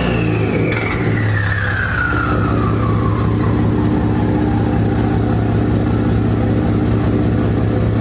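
A 2017 Ford F-150's 2.7L EcoBoost twin-turbo V6 with catless downpipes settling to idle after a rev. Its turbo whistle falls steadily in pitch and fades over about six seconds, while the engine idles with a steady low drone.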